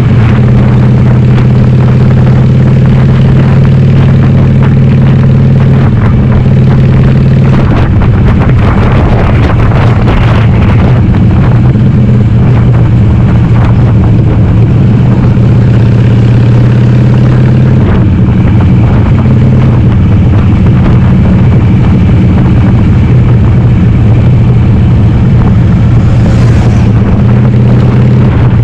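Harley-Davidson Sportster 883R's air-cooled V-twin, upgraded to 1200, running loud through Cobra Speedster 909 pipes with the dB killers removed, heard from the bike while riding. The engine note holds steady and changes pitch about six seconds in and again around eighteen seconds.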